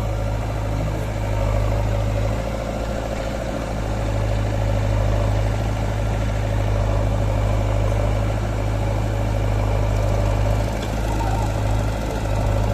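Heavy diesel engine of a backhoe loader or farm tractor running steadily, a continuous low hum with small rises and falls in level.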